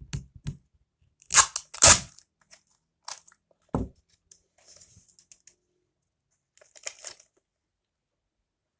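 Paper being handled: a handful of short crunching, tearing noises, the loudest two close together about a second and a half in, with fainter ones near four and seven seconds.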